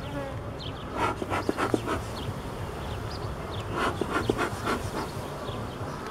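Honeybees buzzing over an open hive, with two short runs of puffs from a bellows smoker, about a second in and again about four seconds in.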